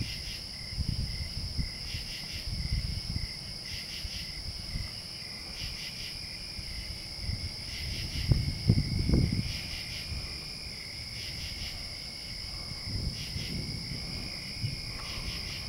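Night insect chorus of crickets: a steady high trill under pulsed calls that repeat about every one and a half seconds. Low buffeting on the microphone comes and goes and is loudest about eight to nine seconds in.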